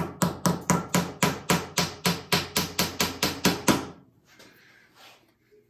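Claw hammer driving a blunted nail through a small wooden block, with quick, even blows at about four to five a second. The hammering stops about four seconds in, followed by a short faint scuff.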